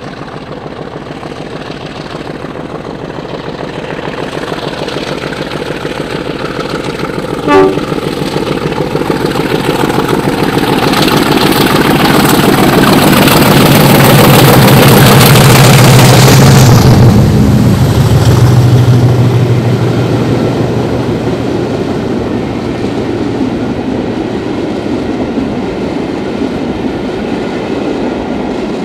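Class 50 diesel-electric locomotive with its English Electric 16-cylinder engine under power as the train approaches and passes. The sound builds to its loudest about midway, then the high end drops off suddenly and the engine fades. A brief horn toot comes about seven and a half seconds in.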